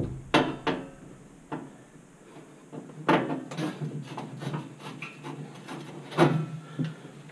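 Screwdriver backing out Phillips screws from the sheet-metal floor panel of a gas oven: scattered small clicks and scrapes of metal on metal, with a few sharper knocks, the strongest about three seconds in and again about six seconds in.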